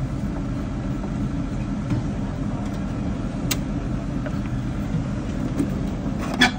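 A steady low hum, with a few light clicks and one sharper click near the end.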